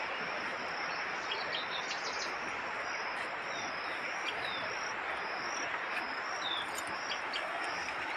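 Birds chirping in a few short, scattered calls over a steady rushing background and a high, pulsing insect trill.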